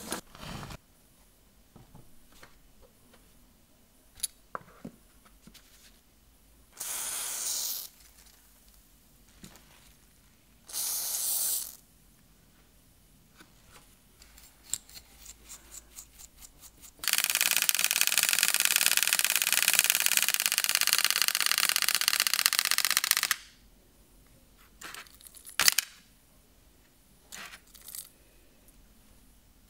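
The clockwork wind-up motor of a 1970s MFZ tin toy speed boat is wound with light ratchet clicks, then runs down with a loud, steady whirr for about six seconds. Earlier come two short hisses, and a few handling clicks follow.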